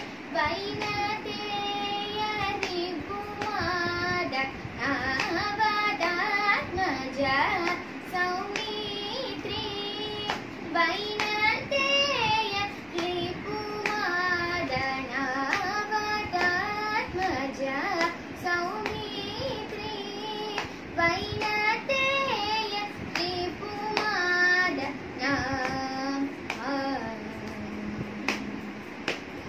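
A girl singing a Carnatic-style song solo, her voice sliding and wavering between notes, with a few soft slaps of her hand on her lap as she keeps time.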